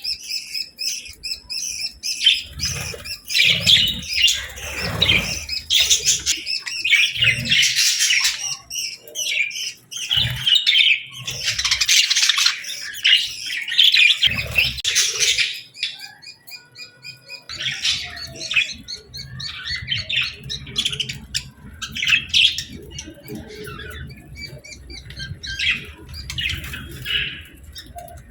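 A flock of budgerigars chirping and squawking, a busy overlapping chatter that thins to scattered calls about halfway through.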